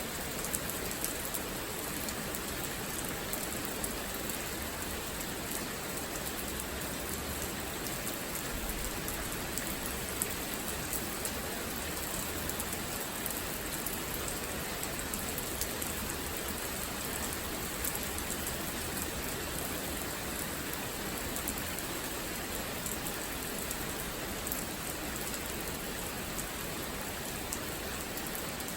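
Steady rain falling, an even hiss with many small drop ticks on a hard surface throughout.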